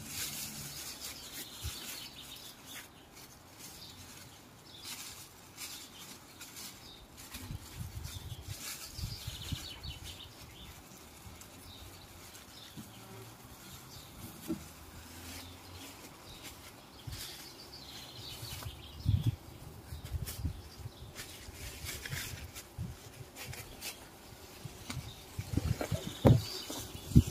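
Bumblebees buzzing around their disturbed nest as its nest box is wrapped in a plastic bin bag, with crackly bag rustling and handling knocks, loudest near the end.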